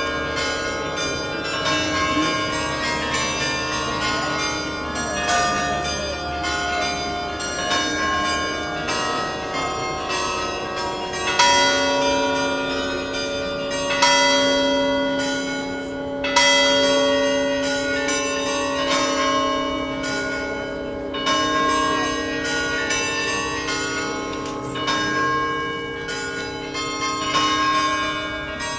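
Tower bells ringing, struck one after another at several different pitches, with each note ringing on under the next.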